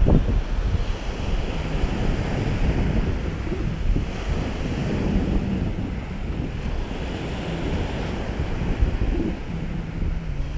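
Small surf waves breaking and washing up a sandy beach in a steady wash, with wind buffeting the microphone as a low rumble.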